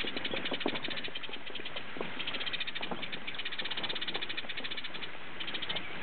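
A rapid, high-pitched pulsing trill from an animal, coming in runs of one to three seconds, over steady outdoor background noise.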